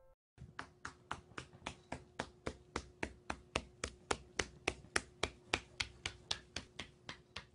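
Parrots hopping across a wooden floor, their feet tapping in an even run of sharp ticks about three a second, growing louder toward the middle and fainter near the end, over a faint steady hum.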